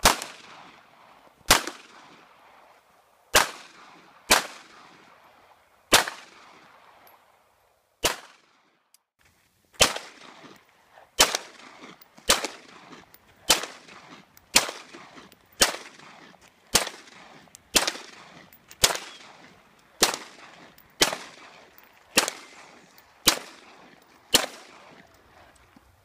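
Handgun fired shot after shot, about twenty shots, each sharp crack followed by a short echoing tail. The shots come one to two seconds apart at first, then settle to about one a second through the second half.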